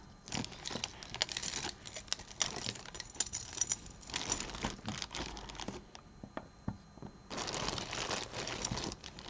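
A bag of tangled costume jewelry being rummaged through: the bag rustles and crinkles in irregular stretches, while beads and metal pieces click and clink against each other as pieces are pulled out.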